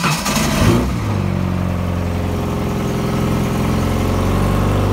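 A fuel-injected 1992 Ford Ranger truck engine, swapped into a boat, just after starting. Its revs waver unevenly for about a second, then settle into a steady idle.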